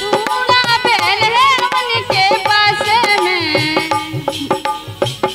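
A woman singing a long, wavering held line of a Bundeli folk song without clear words, her pitch sliding down near the end, over steady hand-drum strokes and harmonium.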